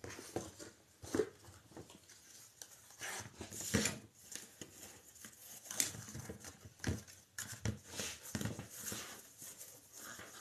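Wired craft ribbon being unrolled, handled and cut with scissors: irregular rustling and crinkling with scattered clicks and light knocks on the table.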